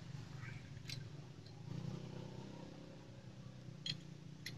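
A few light metallic clicks as Yamaha Jupiter Z transmission gears and shafts are fitted into the aluminium crankcase half, over a faint steady low hum.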